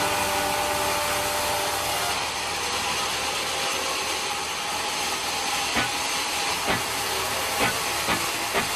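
Sawmill machinery running with a steady loud hiss and faint machine tones, with a few short knocks of wood in the last three seconds.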